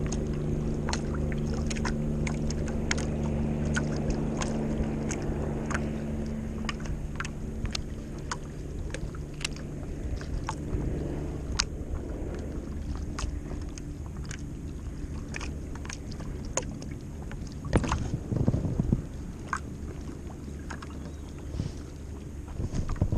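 Small waves lapping and slapping against a paddleboard's hull, giving irregular sharp clicks and splashes, with a steady low hum that fades out about seven seconds in. A few louder knocks come about eighteen seconds in.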